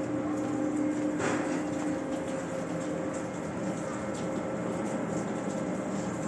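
Steady mechanical drone with a constant low hum, plus a short rustle or scrape about a second in.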